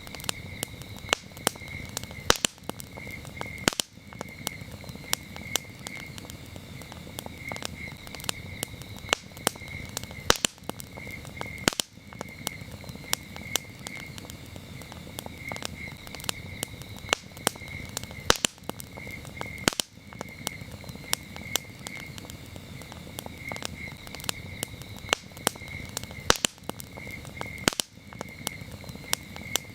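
Campfire burning with frequent sharp crackles and pops over a low steady rustle of flame, while crickets chirp in short repeated trills.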